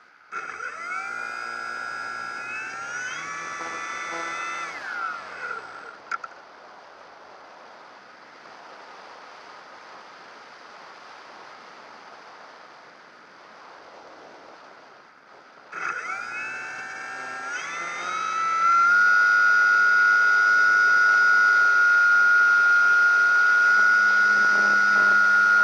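Electric motor and propeller of a Proxima 2 radio-controlled model plane. The motor spins up with a rising whine, runs for about five seconds and cuts out, leaving only rushing air for about ten seconds. It then spins up again and holds a loud, steady whine.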